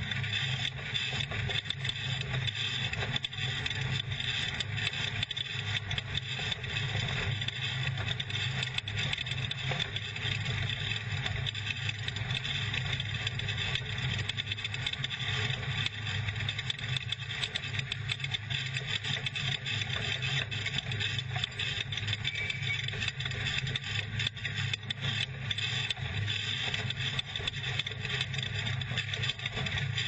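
Ford off-road race truck running at speed over a dirt course, heard from inside the cab: a steady engine drone mixed with constant rattling and clatter from the chassis over the rough ground.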